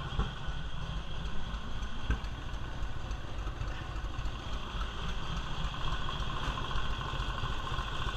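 1946 Indian's flathead V-twin engine idling steadily with an even low beat, its ignition timing set close to the mark during tuning.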